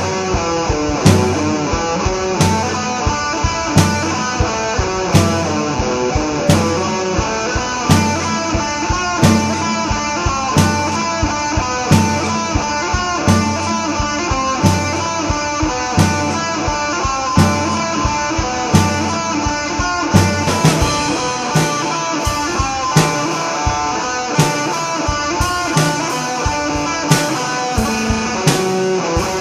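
Instrumental rock: electric guitar playing over drums with a steady beat.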